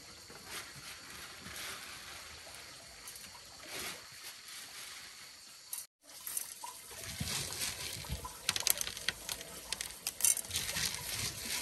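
Water trickling and sloshing, with a run of louder, sharper splashes in the second half after a brief break about six seconds in.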